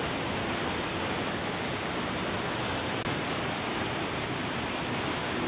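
Small mountain waterfall cascading over rock: a steady, even rush of falling water.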